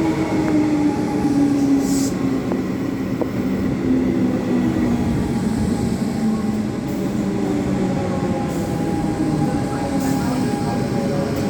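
Electric suburban train braking to a stop at a station platform, its motor tones falling slowly in pitch as it slows, over a steady hum.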